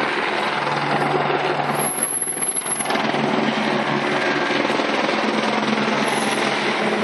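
Steady drone of a helicopter hovering overhead.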